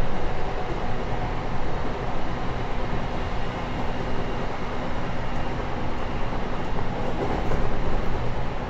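JR Kyushu 813 series electric multiple unit running along the line, heard from inside the passenger car: a steady rumble of wheels and traction equipment with a faint steady hum.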